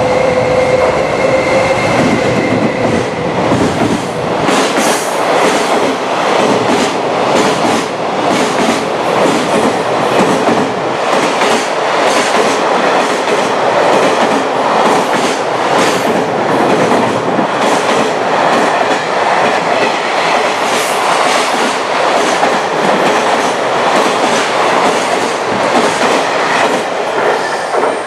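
A long freight train hauled by an electric locomotive runs through close by: a loud rush of steel wheels on rail, with fast, even clickety-clack from the wagon wheels over the rail joints from about four seconds in. It falls away just before the end as the last wagon passes. In the first couple of seconds a held tone fades out as the locomotive approaches.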